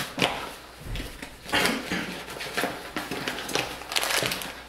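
Rustling and crinkling of a paper flour bag, with light scrapes and taps of a measuring cup as flour is scooped out, coming in several irregular bursts.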